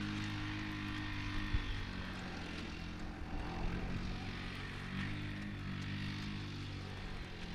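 Boston Dynamics LS3 legged robot's onboard engine running with a steady drone as the robot walks, driving its hydraulic legs.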